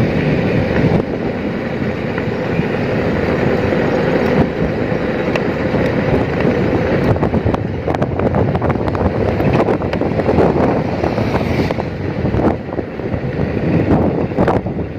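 Wind buffeting the microphone of a moving vehicle, over the steady running and road noise of the vehicle itself; uneven and gusty throughout.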